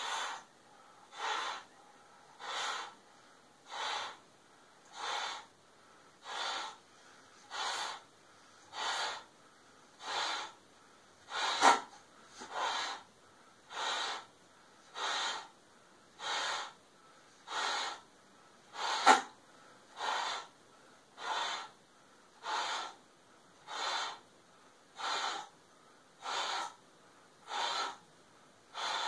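A man's breathing as he blows up a swimming cap by mouth through a tube: short, evenly spaced breaths, about one every second and a quarter, with two louder, sharper ones partway through.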